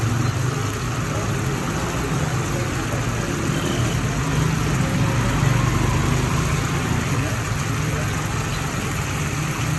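Oil and masala sizzling on a large iron tawa over a steady low rumble, with voices in the background.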